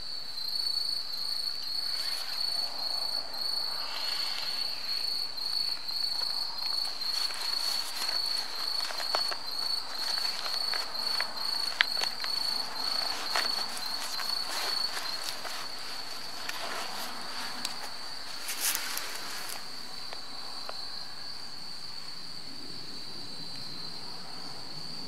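Insects trilling: one steady, unbroken high trill, with a fainter, higher chirp pulsing about twice a second over it. Scattered short clicks and rustles come and go through the middle.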